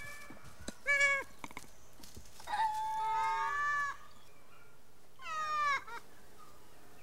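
Ring-tailed lemurs calling: a short call about a second in, then several overlapping calls falling in pitch, and one more falling call near the end.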